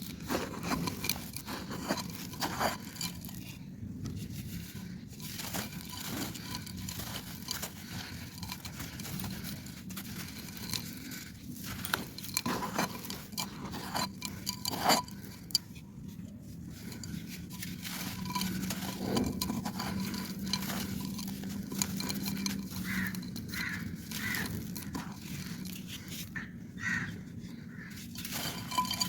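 Dry clay pot being crumbled: irregular, dense crunching and crackling.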